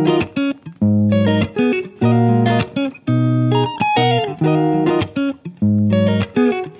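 Background music led by guitar, playing phrases of plucked notes with short breaks between them.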